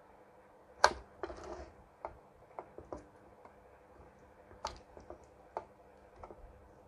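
Scattered light clicks and taps of a soldering iron tip working at solder joints on the underside of a TV circuit board as a resistor is being desoldered, with the hand-held board shifting; the sharpest click comes about a second in, followed by a short rustle.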